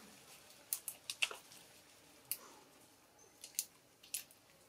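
Dry leaf litter and twigs crackling and snapping under a baby monkey scrambling about and grabbing at stems: short, sharp crackles in small clusters, several about a second in, one a little later, and more near the end.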